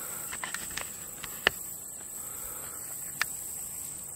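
Steady high-pitched chirring of crickets, with a few short sharp clicks, the two loudest about a second and a half in and near three seconds in.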